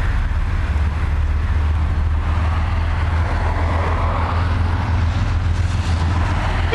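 KiwiRail DXC-class diesel-electric locomotive hauling a loaded coal train, its engine running with a steady low rumble, the noise growing over the last couple of seconds as it approaches.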